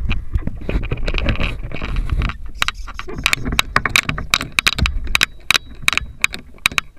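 Scraping and rubbing from a camera being pulled out of a wooden nest box, then a run of sharp, irregular clicks and knocks, several a second, as the camera rig is handled against the wood.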